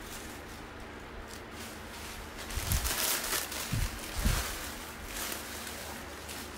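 Faint room hiss, then a couple of seconds of clothes rustling with three dull thumps in the middle, as someone changes out of one dress and into another.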